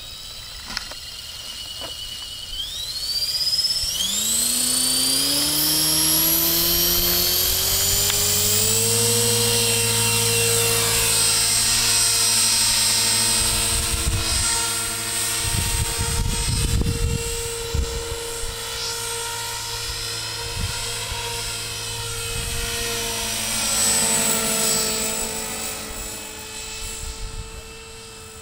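Electric KDS 450 Pro flybarless RC helicopter spooling up: a motor-and-rotor whine that rises in pitch for several seconds. It then settles into a steady whine as the helicopter lifts off and flies, wavering in pitch and loudness as it manoeuvres.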